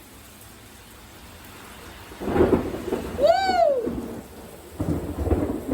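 Thunderstorm: steady rain hiss with close thunder rumbling loudly about two seconds in and again near the end. A short high-pitched cry rises and falls between the two claps.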